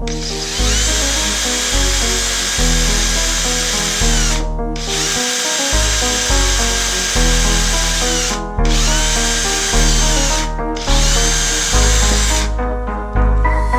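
Power drill running in four long runs, each whining up to speed and winding down at release, with short pauses between them. Background music plays throughout.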